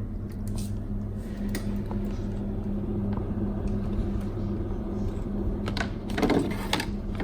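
Plastic clicking and knocking as a refrigerator water filter cartridge is handled and pushed into its slot in the grille, over a steady low hum. A denser run of louder clicks and knocks comes about six seconds in.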